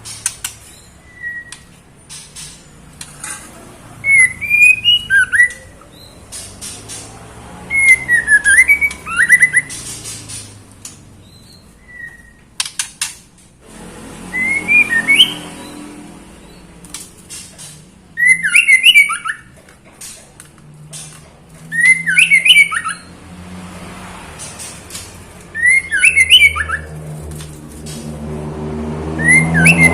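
Female white-rumped shama calling: short phrases of quick sliding whistled notes, repeated about every three to four seconds, about seven times. The calls are those of a female in breeding condition calling for a male. A low hum grows louder near the end.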